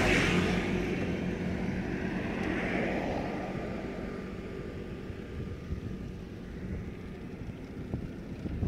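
Road traffic: a motor vehicle passes close by and fades away over the first few seconds, leaving a steady low rumble of traffic and a moving bicycle.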